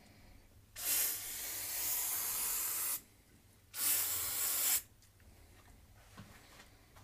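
Aerosol can of silicone spray lubricant hissing in two sprays, a long one of about two seconds, then a shorter one of about a second, onto the tire bead to help release it from the rim before breaking the bead.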